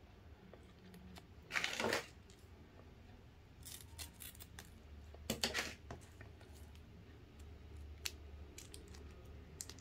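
Scissors snipping through the clear plastic film wrapper of a packaged red bean cake, with small crinkles and clicks of the wrapper being handled. Two short, louder sounds come about one and a half and five seconds in.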